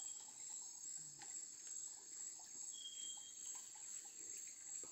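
Steady high-pitched chorus of rainforest insects, with one short high note about three seconds in.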